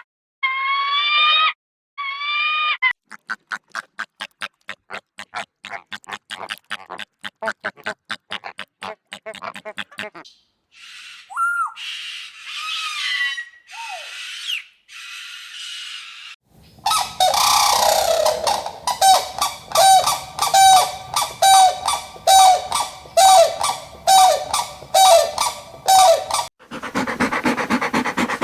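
Calls of several different farm animals and birds, cut one after another: a few pitched calls at first, then a fast rattle of short clicks, then scattered calls with falling pitch, and from a little past halfway a run of repeated calls about two a second.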